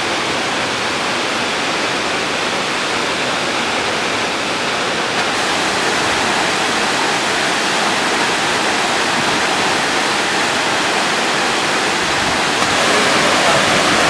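Waterfall plunging into a rock pool: a steady, loud rush of falling water that grows a little louder near the end.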